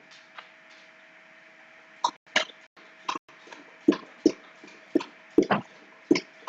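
Computer mouse buttons clicking, about eight sharp clicks at uneven intervals starting about two seconds in, over a faint steady electrical hum.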